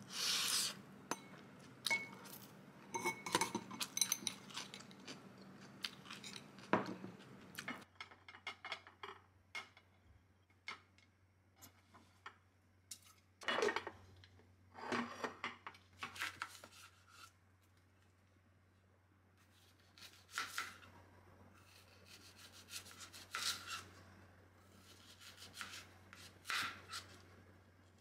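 Spoon and fork scraping and clinking against a ceramic bowl. After about eight seconds, scattered clinks, knocks and rubs of dishes and a wooden cutting board being handled on a stone kitchen counter.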